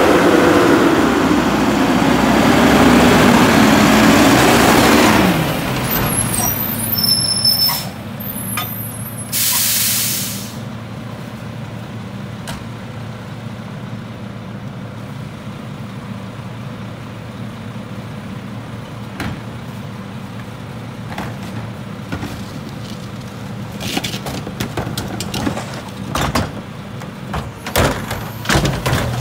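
Mack LR garbage truck's diesel engine pulling up with its pitch rising and falling, then a sharp hiss of the air brakes about ten seconds in as it stops. The engine then idles steadily, with knocks and clatter near the end as a wheeled cart is hooked onto the McNeilus rear loader's tipper.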